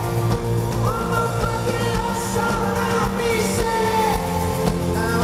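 Live pop-rock band playing, with a male lead vocal singing a melody over drums, bass and keyboards.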